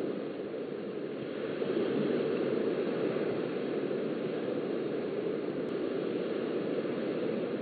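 Steady rushing of surf washing onto a sandy beach, picked up by a beachfront webcam's microphone, swelling slightly about a second and a half in.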